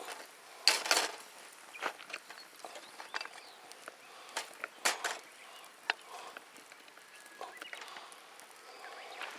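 Irregular light knocks and clicks, a dozen or so short sharp sounds, the loudest just under a second in and about five seconds in.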